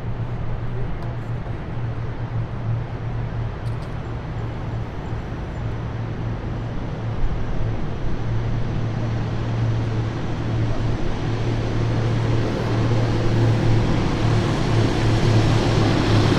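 Heavy military vehicles driving past, a steady low engine rumble under road noise that grows louder toward the end as a vehicle approaches.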